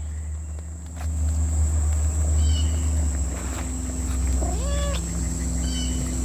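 A cat gives one short meow about four and a half seconds in, over a steady low hum.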